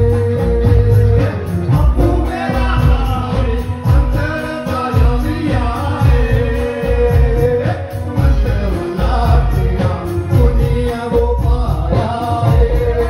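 Live Himachali Gaddi folk song: a singer's voice over a strong bass beat and a held keyboard drone.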